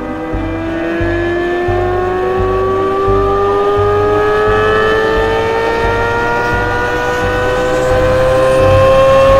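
2023 Corvette Z06's 5.5-litre LT6 flat-plane-crank V8 under full load. Its pitch climbs steadily in one long pull through a single gear with no shift, growing louder near the end as it revs toward redline.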